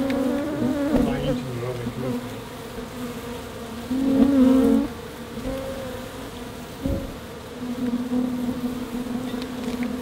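African honey bees buzzing close by in a steady, even-pitched hum that swells louder about four seconds in and again in the last couple of seconds. There is a single sharp knock near the seven-second mark.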